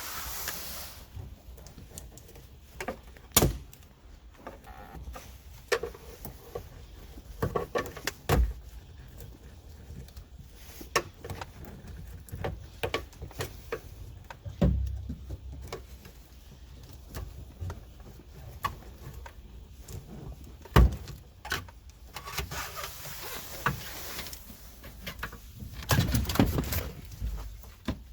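Irregular clicks, knocks and rattles of hand work on a car's rear quarter window assembly and trim, with a few sharper knocks spread through.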